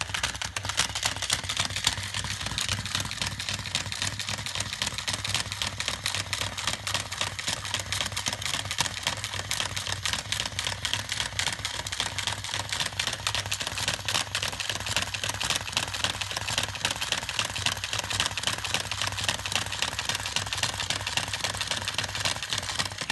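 Chubby Puppies Dalmatian toy running: its small battery motor and gears make a steady, fast clicking rattle over a low hum as it waddles.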